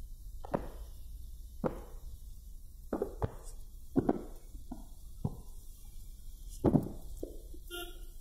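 Irregular knocks and thumps, about a dozen over several seconds, over a steady low rumble inside a moving car's cabin.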